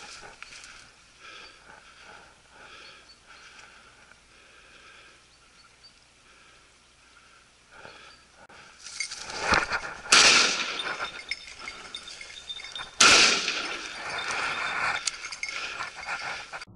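Two shotgun shots about three seconds apart, each a sharp, loud crack followed by a long fading echo.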